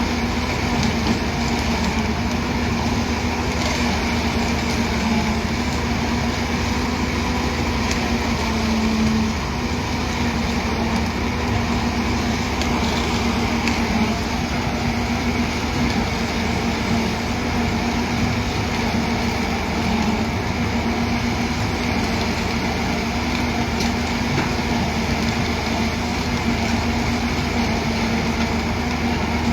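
Heavy construction machinery engine running steadily at a constant speed, with a slight dip about nine seconds in.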